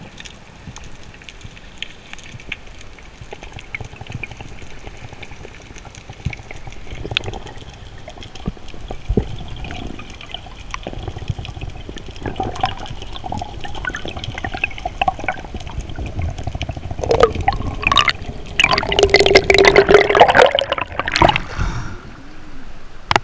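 Sea water sloshing and bubbling around a spearfisher's GoPro in shallow water, building steadily, with a loud burst of bubbling and splashing about three-quarters of the way through.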